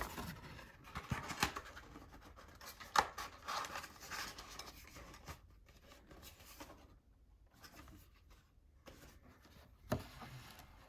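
Trading card packs and cards being handled by hand: faint scattered rustles, scrapes and light taps of foil wrappers and card stock, with a sharper tap near the end.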